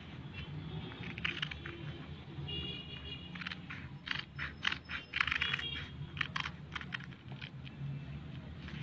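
Scissors snipping through coloured paper: a run of crisp cuts, most of them bunched in the middle of the clip, over a low steady hum.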